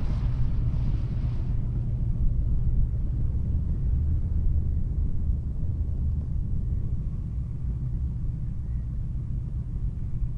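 Light single-engine piston aircraft, engine and propeller running with a steady low drone; a brighter hiss over it fades out in the first second or two.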